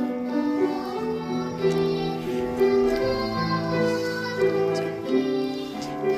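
Children's vocal ensemble singing a slow melody with piano accompaniment.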